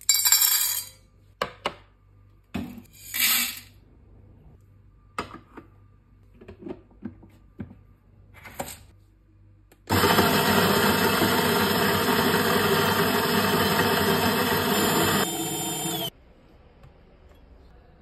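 Coffee beans rattling from a scoop into a stainless steel cup, followed by a few short clatters of handling. Then a Mahlkönig X54 burr grinder runs loudly and steadily for about six seconds, grinding a dose of beans. Its sound drops a little shortly before it stops suddenly.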